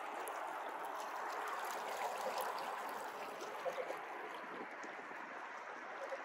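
Water rushing and splashing along the hull of a small boat under way in shallow water: a steady wash with a few small splashes about halfway through.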